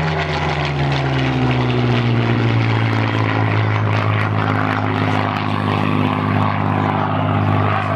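Supermarine Spitfire's V12 piston engine running at display power in a fly-past. The engine note drops in pitch over the first couple of seconds as the aircraft passes, then settles into a steady drone as it moves away.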